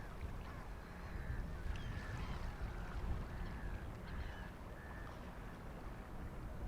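Black-headed gulls calling repeatedly, short harsh calls following one another about every half second to a second, over a steady low rumble.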